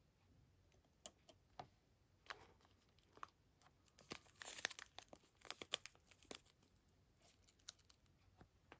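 Faint crinkling and tearing of packaging being handled, with scattered small clicks and taps, busiest and loudest around the middle.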